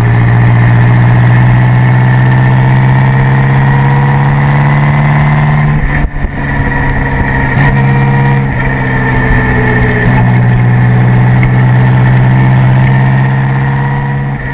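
1927 Bugatti Type 35B Grand Prix car's supercharged straight-eight engine running steadily on the road. The note dips and breaks briefly about six seconds in, then carries on.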